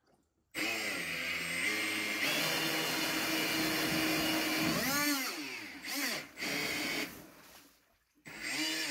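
Electric motor from a Milwaukee M18 chainsaw driving a 3D-printed jet-drive pump, starting suddenly about half a second in with a high motor whine and churning water. Its pitch steps up twice, dips and recovers around the middle, then the motor winds down near the end, with a short burst just before the end.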